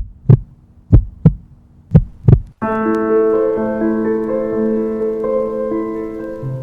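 Heartbeat sound effect: three low double thumps about a second apart. About two and a half seconds in, keyboard music with long held chords starts abruptly.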